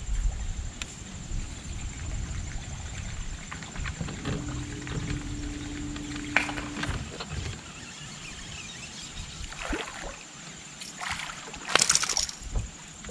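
Bow-mounted trolling motor humming steadily for a few seconds in the middle, then, near the end, a sharp splash as a hooked bass is hauled up out of the water.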